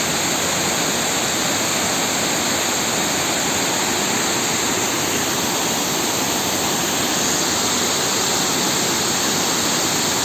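Waterfall in monsoon flow: a steady, unbroken rush of falling water.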